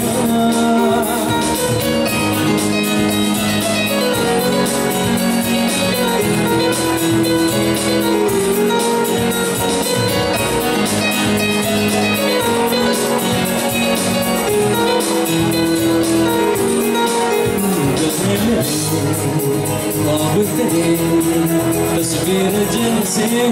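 Live band playing an instrumental interlude of a Hindi film song: a keyboard melody with guitar over a steady beat.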